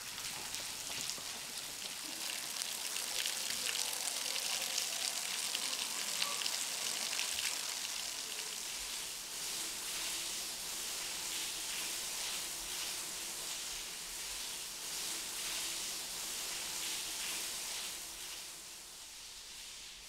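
Water dripping and spattering from the rock overhang at a limestone cave entrance: a steady, rain-like patter of many small drops, dropping off near the end.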